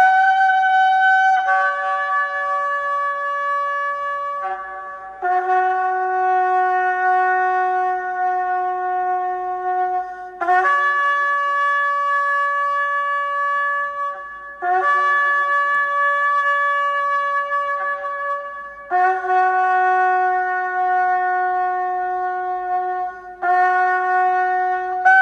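Shofar sounding a series of long held blasts, each about four to five seconds with short breaks between, the pitch moving between a lower and a higher note.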